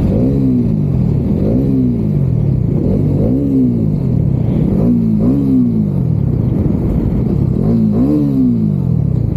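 Bajaj Dominar 400's single-cylinder engine revving repeatedly, its note rising quickly and falling back about six times, as if being worked through the gears. It is heard from inside the rider's helmet.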